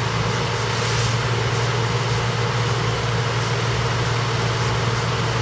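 Engine of a railroad maintenance-of-way truck idling with a steady, even low hum.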